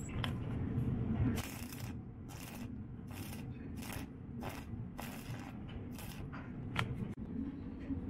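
Stick (arc) welding on a steel cage frame: the arc crackles and sizzles in short bursts, struck again and again roughly every half second to a second.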